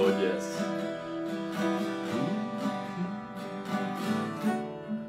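Acoustic guitar strummed in a steady rhythm, about two to three strokes a second, with the strumming dying away near the end.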